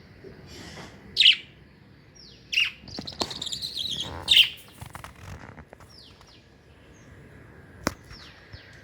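Pet budgerigars chirping: repeated short falling chirps, three louder calls in the first half with a burst of rapid chatter between them. A single sharp click near the end.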